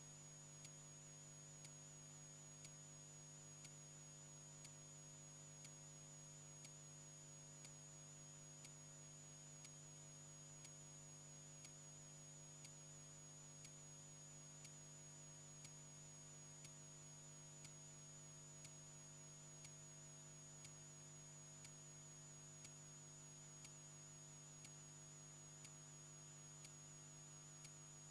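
Near silence: a wall clock ticking faintly about once a second over a low steady electrical hum.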